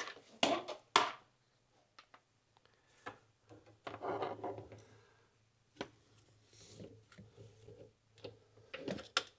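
Handling noise as a handheld endoscope is picked up and its probe cable is worked down among the engine parts: scattered sharp plastic clicks, two loud ones in the first second, and a burst of rustling and rubbing about four seconds in. A faint steady low hum runs underneath.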